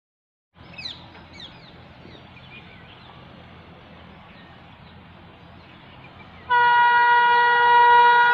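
Indian Railways WAP7 electric locomotive's horn sounding one long steady blast of about two seconds, starting about six and a half seconds in, from a train approaching the station. Before it there is only faint background noise with a few short high chirps.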